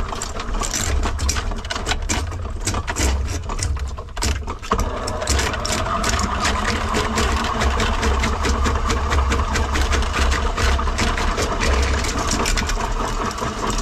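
Electric drain-cleaning machine running, its spinning steel auger cable clattering rapidly against the rusty cast-iron drain pipe as it is fed into the line, over a low motor hum.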